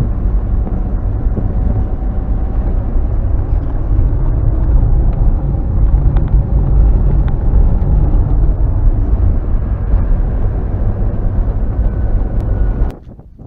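Car driving on a field road, a loud, steady low rumble of engine and road noise that cuts off suddenly near the end.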